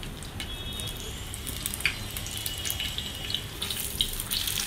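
Hot oil sizzling, with scattered pops, around an egg-dipped chicken cutlet deep-frying in a pan.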